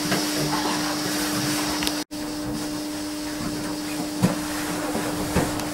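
Steady fan-like hum with a constant low tone and a few faint knocks. It drops out for an instant about two seconds in.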